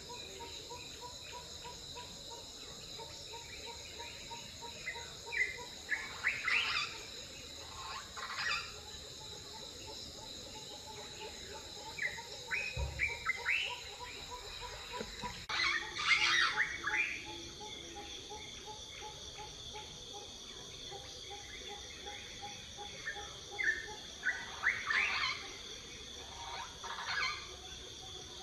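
Outdoor wildlife ambience: a steady high insect drone with birds chirping in short bursts every few seconds, over a faint, rapidly pulsing lower tone.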